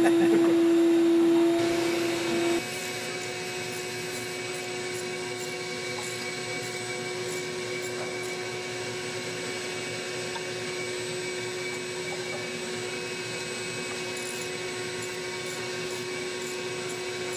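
Shop vacuum running steadily, a continuous hum with a thin steady whine. It is louder for the first couple of seconds, then drops to a lower level about two and a half seconds in and holds there.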